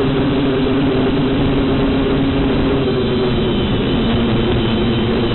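XK X251 quadcopter's motors and propellers buzzing steadily in flight, heard through its own onboard camera. A thin high whine joins in about three seconds in.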